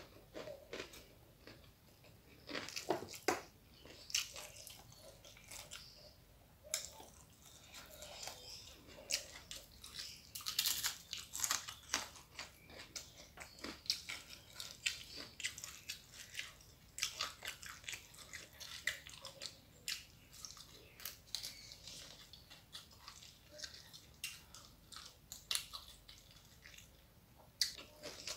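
Close-up eating sounds: crisp bites and chewing of dried fried salted fish, rice and raw greens, with many sharp crunches, thickest about ten seconds in.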